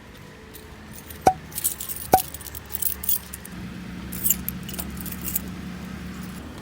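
Jangling and rattling of small hard objects, with two sharp clinks that ring briefly about a second and two seconds in. A low steady hum sets in about halfway through.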